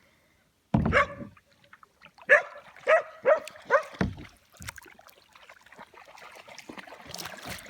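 A lamb bleating: one call about a second in, then a string of short calls about two to four seconds in.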